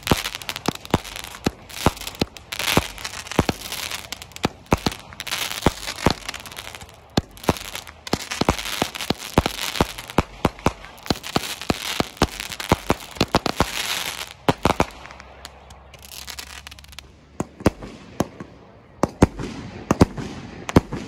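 Firecrackers going off in rapid, irregular succession, sharp pops over a crackling hiss. The popping thins out about fifteen seconds in, then picks up again near the end.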